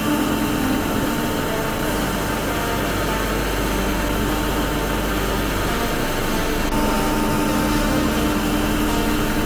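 Fendt combine harvester running steadily while harvesting rapeseed: a constant engine and machinery hum with a couple of held tones over a noisy rush.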